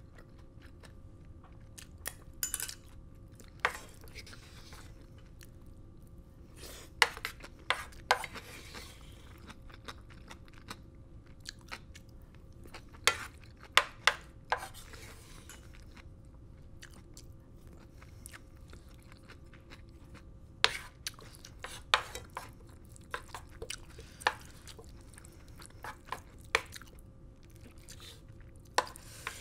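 Close-miked eating from a metal pan: a wooden spoon scrapes and taps against the pan in scattered sharp clicks, some in quick clusters, with chewing of mouthfuls of fried rice between them.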